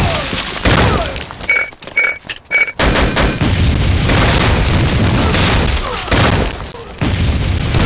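A barrage of artillery shell explosions, blast after blast, with a brief lull about two seconds in that holds three short high tones before the next explosion hits.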